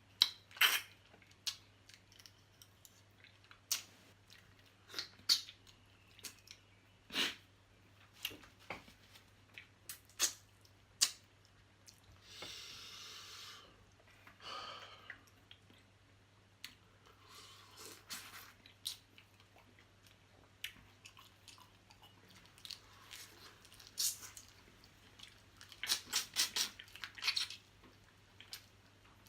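Close-miked eating of small blue crabs from a seafood boil: scattered sharp clicks and crunches of chewing, a longer noisy stretch about twelve seconds in, and a quick run of clicks near the end.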